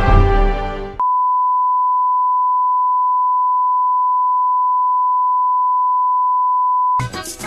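A steady 1 kHz broadcast reference tone, the tone of bars-and-tone played with colour bars, held at one pitch and level for about six seconds. It starts abruptly as the channel ident music cuts off about a second in, and stops abruptly as the programme's opening music begins near the end.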